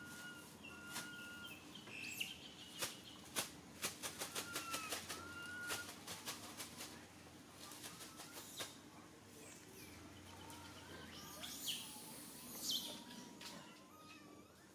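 Short, high, squeaky calls from a baby long-tailed macaque, scattered through, over a run of quick, sharp fluttering taps that are densest from about two to nine seconds in.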